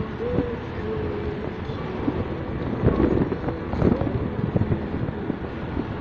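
Motorcycle riding along a road: engine running with a steady rumble and irregular low thumps, and a wavering engine tone that rises and falls.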